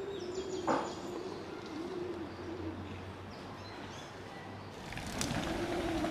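A dove cooing outdoors in a few low, arching hoots, over a steady low hum, with a sharp click about a second in. Wind noise on the microphone rises near the end.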